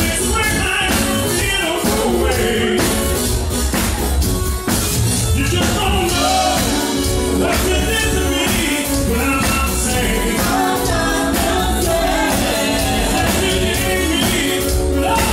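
Live band playing an 80s-style freestyle dance song: electric bass, drum kit and keyboard, with a lead singer's voice over the top and hand percussion.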